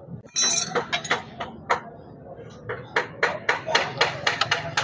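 Hand tools working metal motorcycle parts: sharp metallic taps and clinks, a few at first, then coming fast and unevenly, several a second, in the last couple of seconds.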